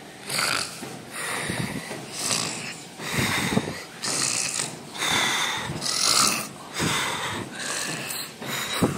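A person snoring loudly, with a run of noisy, hissy breaths at roughly one a second.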